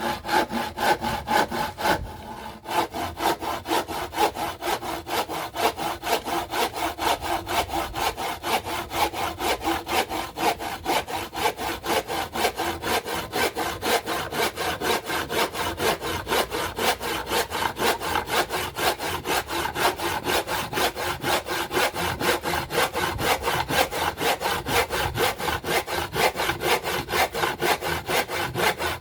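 Hand saw cutting through wood in quick, even back-and-forth strokes, pausing briefly about two seconds in before carrying on steadily.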